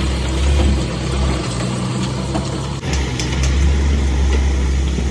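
Heavy goods truck's diesel engine running at low revs: a steady low drone that breaks off for an instant about three seconds in and carries on.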